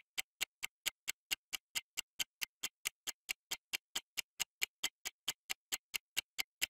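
Countdown timer sound effect: fast, even clock-like ticking, about four to five ticks a second.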